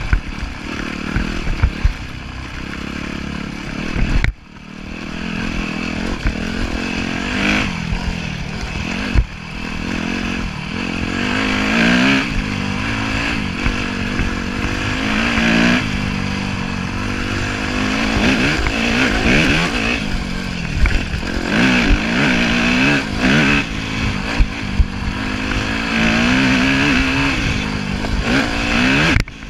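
A 2010 Yamaha YZ250F's single-cylinder four-stroke engine, ridden on a dirt trail, its revs climbing and falling over and over with throttle and gear changes. Short knocks and clatter from the bike run through it.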